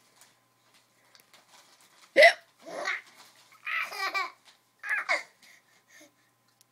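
An adult hiccups once, sharp and loud, about two seconds in, and a baby answers with a few short spells of laughing over the next three seconds.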